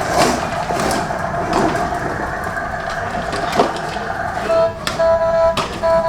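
Toy spinning jacks whirring as they spin on a hard surface, a rough, steady rattle. From about four and a half seconds in, a steady humming tone breaks in and out several times.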